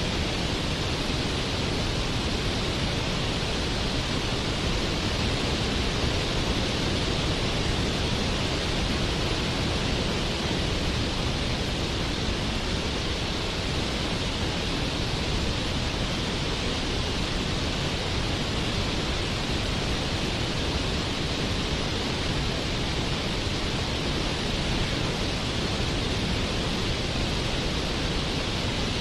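Waterfall: a steady, even rush of falling water with no change.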